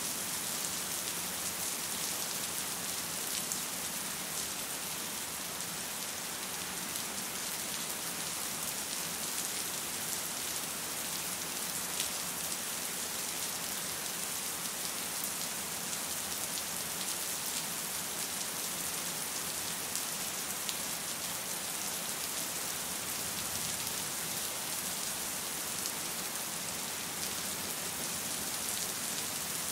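Steady rain falling: an even hiss with small scattered drop ticks, and one slightly sharper drop about twelve seconds in.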